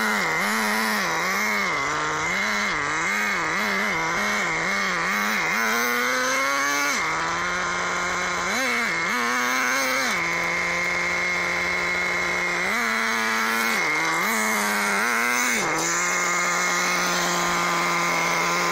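Small nitro glow engine of a Thunder Tiger Tomahawk BX RC buggy running. For the first five seconds the throttle is blipped in quick, even pulses. After that it settles to a steady idle, revved up and back down a few times.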